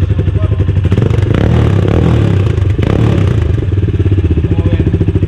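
Vento Rocketman 250 motorcycle exhaust with the silencer insert removed, idling with a loud, even putter. About a second in it is blipped up for a couple of seconds, then drops back to idle.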